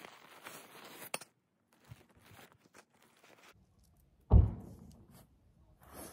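Handling noise from pitching a lightweight tent: crinkling and rustling of fabric and gear on dry grass, with a sharp click about a second in. After a short quiet gap comes one heavy, deep thump, the loudest sound, that fades quickly.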